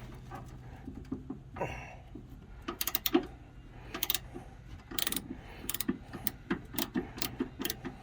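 A 3/8-inch socket ratchet clicking in short strokes while loosening an old, long-unmoved bolt on a snowblower's guard: a series of sharp, irregular clicks starting a couple of seconds in, a few per second.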